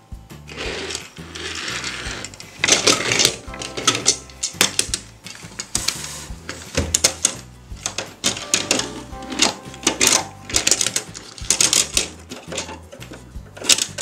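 Plastic roll-up doors of a toy bus garage rattling open and shut, with small plastic toy vehicles clacking against it: a run of quick clicks and rattles over background music.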